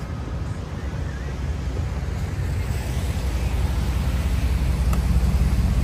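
Low, steady rumble of city street traffic, slowly growing louder.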